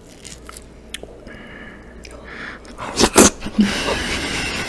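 Breath blown hard out through the nose right at the microphone: two loud sharp puffs about three seconds in, then a long breathy exhale. Before that come faint clicks of a skewer picking at dragon fruit flesh and a thin whistling tone.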